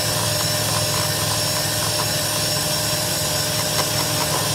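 Electric hand mixer running steadily at high speed, whipping chilled heavy cream in a bowl, with a few faint ticks.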